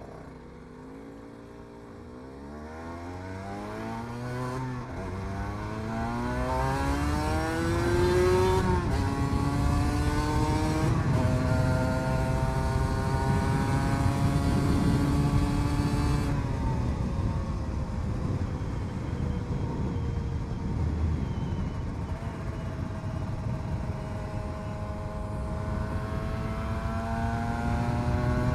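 Motorcycle engine accelerating through the gears: the note climbs in pitch, drops at gear changes about nine and eleven seconds in, holds steady, then falls away slowly as the bike eases off to a cruise.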